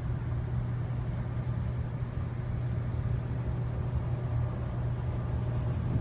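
A steady low rumble that holds unchanged throughout.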